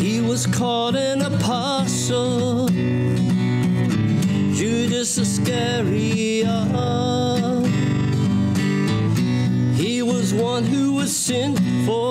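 A man singing to his own strummed acoustic guitar, in sung phrases with the guitar carrying on alone between them.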